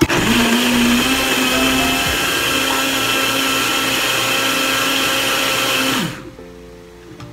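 Personal bullet-style blender puréeing vegetables and broth. The motor starts at once, runs steadily with a whine, and winds down about six seconds in when the cup is released.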